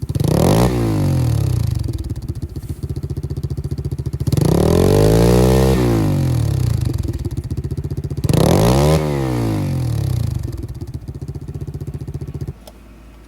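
Pit bike engine with its stock baffled exhaust idling and revved three times, each rev rising and falling back to idle, then shut off near the end. This is the restricted stock sound before the exhaust baffle is removed.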